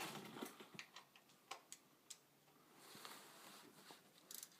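Faint, scattered metal clicks of a 1/2-inch socket and ratchet being handled and set onto the oil drain plug, with a quick run of clicks near the end.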